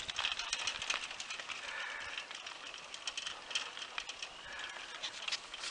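Gravel crunching and rattling under the tyres of a recumbent trike and the paws of a dog trotting beside it, heard as a steady hiss with many small irregular clicks.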